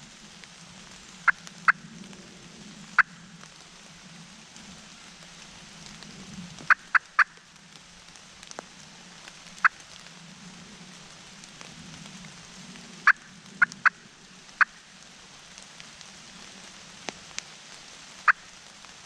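Wild turkeys clucking: about a dozen short, sharp single notes, some in quick pairs or runs of three, spaced unevenly, over a faint steady low hum.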